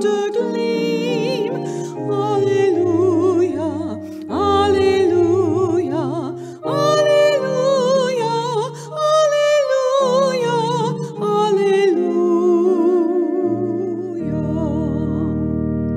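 A hymn sung by a solo voice with wide vibrato over sustained accompanying chords. It ends on a long held chord with a low bass about two seconds before the end.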